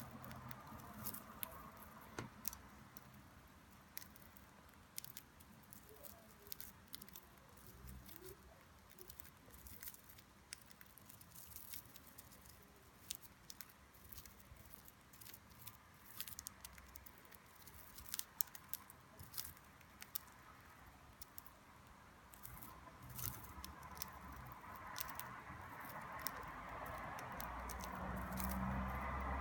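A budgerigar nibbling and tearing at food with its beak: faint, irregular little clicks and snips. A soft rustling noise builds over the last few seconds.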